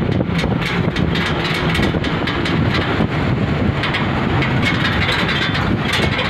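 Moving truck heard from inside its cab: steady engine drone and road noise, with frequent short rattles.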